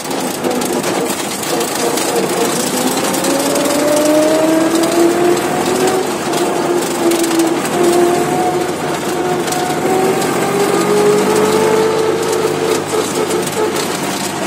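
Old tractor's engine running while the tractor drives along a dirt road, heard from the driver's seat, with a steady rattle. Its pitch drifts slowly up and down as the engine speed changes a little.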